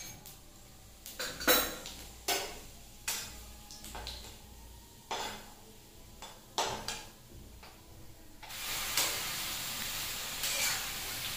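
Metal spatula clinking and scraping in a steel kadai as cumin seeds fry in a little oil. About eight and a half seconds in, cut vegetables go into the hot oil and a loud, steady sizzle takes over.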